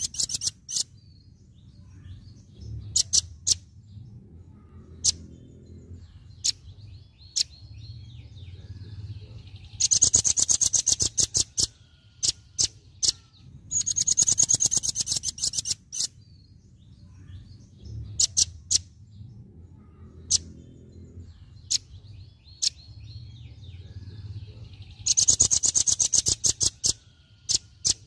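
Velvet-fronted nuthatch giving its rapid-fire 'tembakan' call: fast rattling trills of sharp, high notes in bursts of about two seconds, four times, with single sharp notes between them, over a faint low hum.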